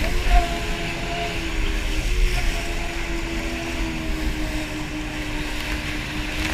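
Yamaha jet ski engine running steadily at speed, its pitch dipping and shifting slightly about two seconds in, over a low rumble.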